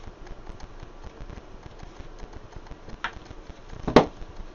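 Wooden lattice frame of a plant press knocking as it is handled: a light knock about three seconds in, then a sharper, louder knock about a second later. Faint rustling of paper and cardboard sheets runs underneath.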